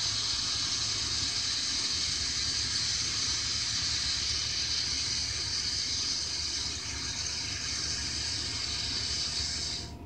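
A steady hiss that cuts off abruptly near the end.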